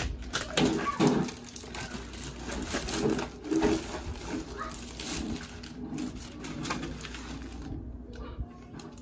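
Clear plastic packaging bag rustling and crinkling as it is torn open and pulled off a fabric rod case, with louder bursts about a second in and again about three and a half seconds in, then quieter near the end.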